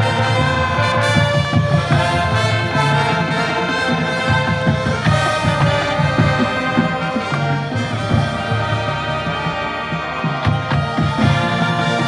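Marching band playing: brass (trumpets and trombones) carrying the melody over a pulsing low end.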